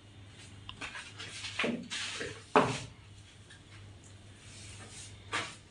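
Long-handled plastic cobweb brush swept along the ceiling, a run of brushing scrapes and light knocks with one sharp knock about two and a half seconds in, and another near the end.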